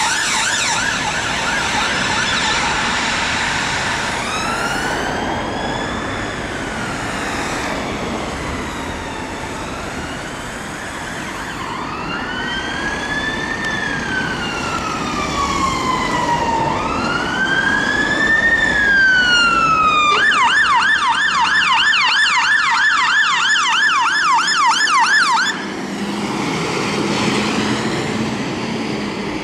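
Electronic emergency-vehicle sirens. A fast yelp gives way to slow wails rising and falling, then a fast yelp of about four sweeps a second. About four seconds before the end this cuts to a vehicle's engine running, and a new wail starts near the end.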